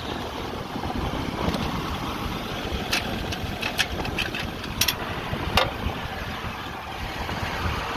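1951 Oliver 77 tractor's six-cylinder engine running steadily through its muffler while driving, with a handful of sharp clicks and rattles in the middle.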